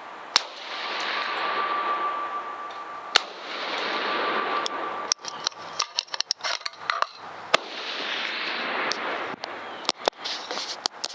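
Rifle shots on a firing range: two sharp cracks about three seconds apart, among a rushing noise that swells and fades, then a run of smaller clicks and knocks.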